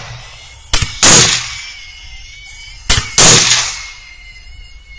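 Two rifle shots, about a second in and about three seconds in. Each is a short sharp crack followed closely by a loud blast that rings away.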